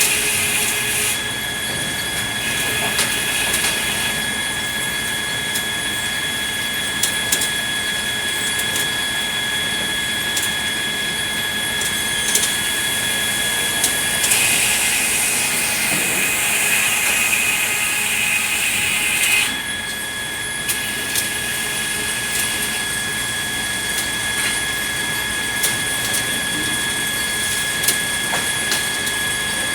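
Sawmill machinery sawing red pine: a steady high whine with scattered knocks and clatters. For a few seconds midway the whine drops out and a louder rushing hiss takes its place.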